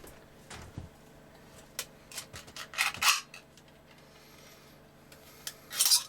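Metal can being handled and worked at: scattered light clicks and clinks, with louder rasping scrapes about three seconds in and again just before the end.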